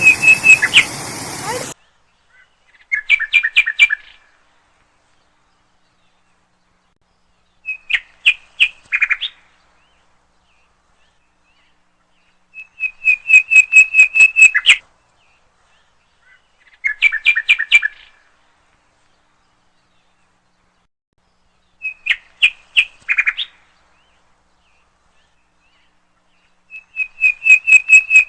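A bird's call: a rapid trill of evenly spaced high notes, repeated in short bursts every four to five seconds with silence between them.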